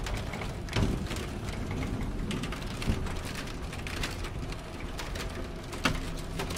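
Steady ambience of a large audience in a hall, with scattered small clicks and three louder knocks, about a second in, near the middle and near the end.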